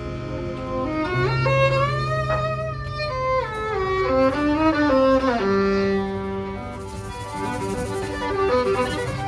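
Violin playing a melody with slides between notes over a band accompaniment, with a low note held underneath in the first half.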